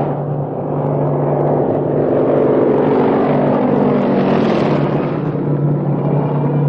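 Propeller aircraft engine droning steadily as the plane flies past, its pitch sinking partway through.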